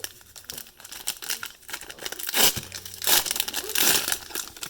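Cellophane card-pack wrappers crinkling and sticky tape being pulled and torn, with loud ripping bursts about halfway through and again near the end.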